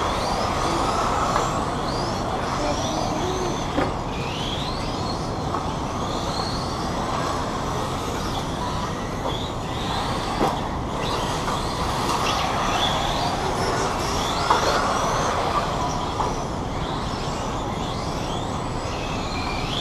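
Small electric RC cars racing, their motors whining in short rising and falling pitches over a steady rushing noise.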